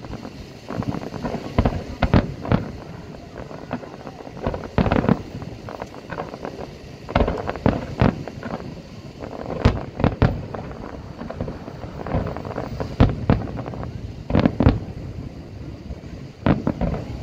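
Fireworks display: aerial shells bursting in irregular clusters of sharp bangs, sometimes two or three in quick succession, with short gaps between.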